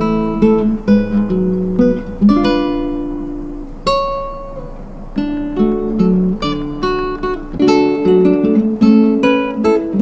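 Background music of plucked acoustic guitar, a string of single notes and chords that ring and fade, thinning to a few held notes about four seconds in.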